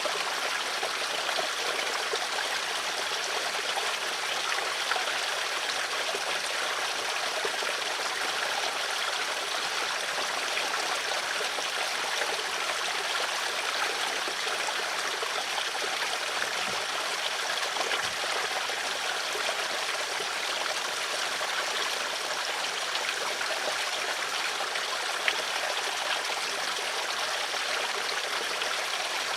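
Stream of water flowing steadily, an even rushing and trickling.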